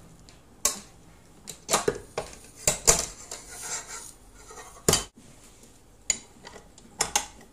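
Metal clanks and clicks of a stainless steel mixer bowl being set onto the bowl-lift arms of a KitchenAid Pro 600 stand mixer and seated in place: a string of separate knocks, the loudest near the middle.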